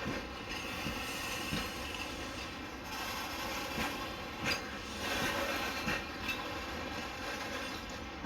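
Container freight wagons rolling slowly past, their wheels knocking over rail joints at irregular intervals about once a second, over a steady rumble with a faint high wheel squeal.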